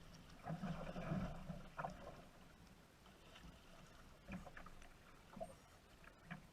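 Faint knocks, clicks and rustling from a fishing kayak, with a soft stretch of noise about a second in.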